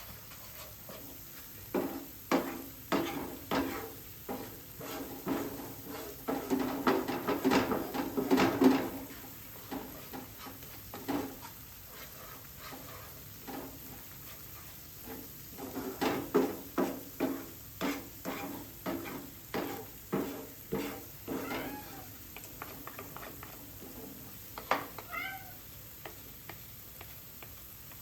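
A cooking utensil knocking and scraping in a pot as curry is stirred, in two runs of quick strokes, with a few short, high gliding calls near the end.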